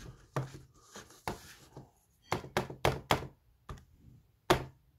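Buttons of a Casio fx-82AU PLUS II scientific calculator being pressed to key in a calculation: about eight short plastic taps, irregularly spaced, with a quick run of four around the middle.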